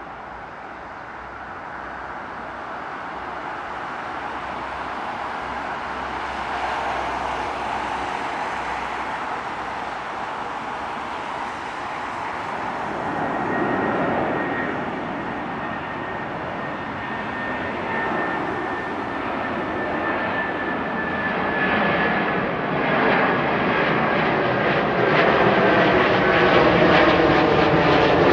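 Jet airliner taking off, its engine noise growing steadily louder as it draws closer, with a high whine that glides slightly down in pitch from about halfway in.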